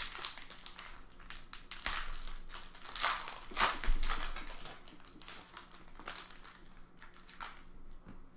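Plastic wrapping of a trading card box and pack being handled and opened, crinkling in irregular bursts that are loudest about two, three and three and a half seconds in.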